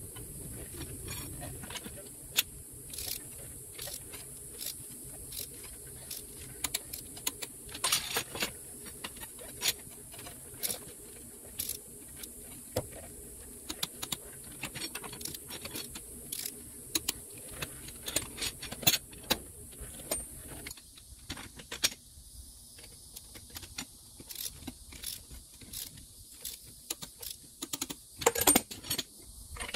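Irregular metal clicks and rattles of a torque multiplier and torque wrench being fitted and worked on the lug nuts of a motorhome's dual rear wheel, with a quick run of clicks near the end.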